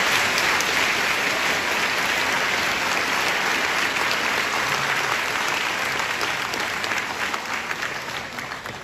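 A large seated audience applauding: dense, steady clapping that dies away near the end.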